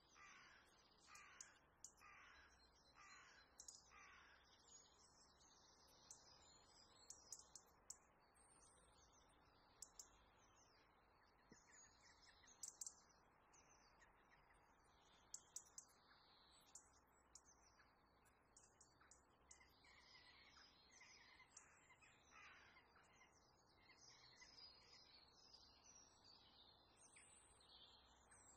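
A crow cawing faintly: a run of about five harsh, falling calls less than a second apart at the start, and another run about two-thirds of the way through. Scattered faint crackles and chirps fill the gaps.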